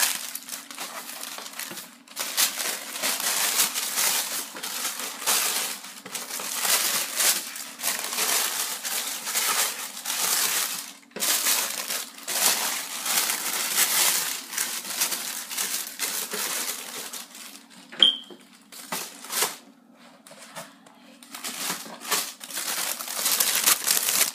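Crinkly plastic packaging being handled and pushed back into place, in repeated bursts with short pauses. A single sharp click about eighteen seconds in.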